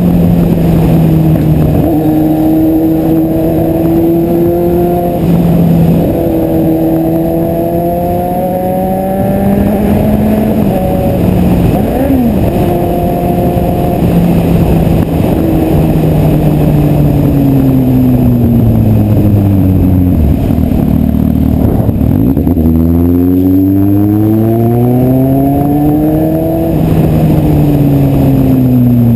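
Kawasaki Z750 inline-four motorcycle engine running loud, its note holding steady for stretches and then falling and rising several times as the throttle changes, sinking lowest about two-thirds of the way through before climbing again.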